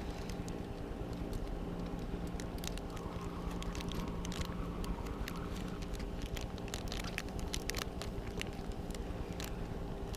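Spinning reel being wound in after a missed bite, giving irregular small clicks and crackles over a steady low hum.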